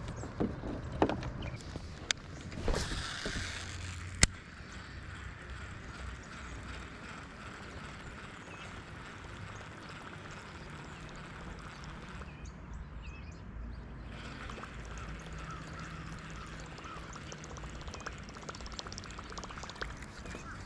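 Steady water-and-wind noise on a river from a fishing boat. A few sharp clicks and a short swish come in the first four seconds, the kind made by fishing tackle.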